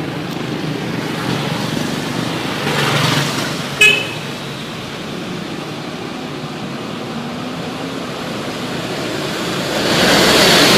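Road traffic running by, with one short vehicle horn toot about four seconds in. The traffic noise swells louder near the end as a vehicle comes close.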